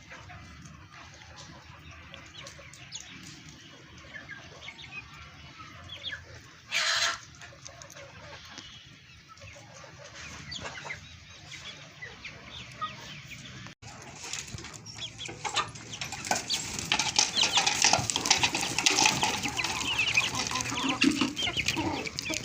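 Chickens clucking, with a short loud burst of noise about a third of the way in. The clucking grows louder and busier in the last third.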